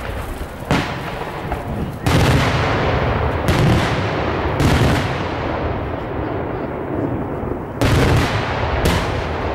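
Daytime aerial firework shells bursting overhead: about six loud bangs, the heaviest about two seconds in, with a continuous rumbling crackle of smaller reports and echoes between them.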